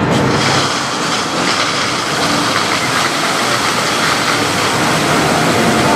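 Show-fountain water jets spraying from nozzles in a lagoon, with the spray raining back onto the water surface: a steady rushing hiss with a low rumble underneath.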